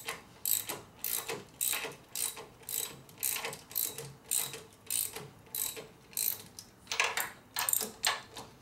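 Ratchet wrench clicking in quick back-and-forth strokes, about two a second, tightening the handlebar mounting bolts down evenly.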